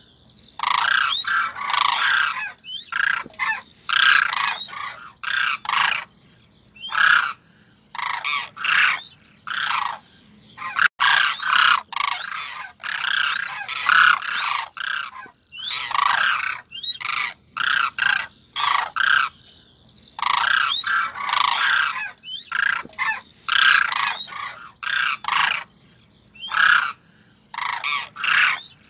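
Cranes (koonj) calling over and over in loud bursts of calls separated by short pauses. This is a crane call recording of the kind played as a lure in crane hunting.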